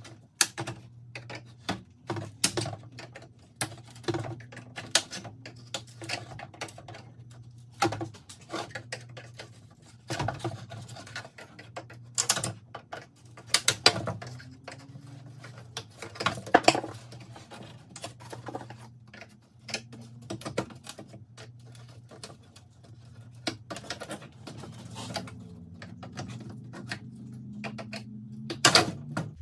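Irregular clicks, knocks and snaps of plastic as retaining clips are pried out of a truck grille shell and its mesh insert is worked loose, with a steady low hum underneath.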